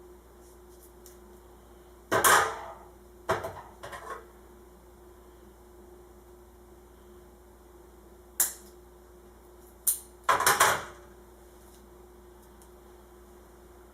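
Several sharp knocks and clatters of hand tools and small parts being handled and set down on a work surface, in clusters about 2 to 4 seconds in and again around 8 to 11 seconds in, over a faint steady hum.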